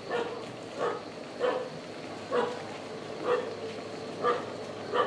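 A dog barking over and over at an even pace, about one bark a second.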